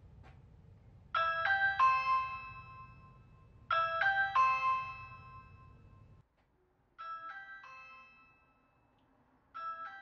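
Ring Battery Doorbell Plus playing its chime, a short run of ringing notes, each time its button is pressed. It sounds twice loudly at its default maximum volume, then twice much more quietly once the volume slider has been turned down.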